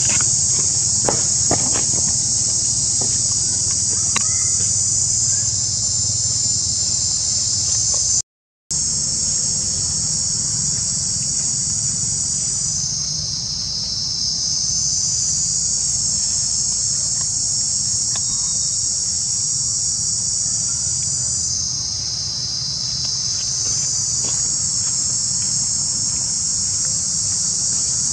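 Loud, steady, high-pitched chorus of insects, easing slightly twice and then building again. The sound cuts out completely for a split second about eight seconds in.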